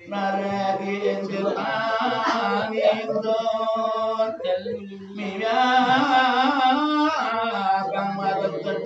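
A man chanting a recitation from a text into a hand microphone, in long wavering melodic phrases broken by short pauses for breath, over a steady low tone.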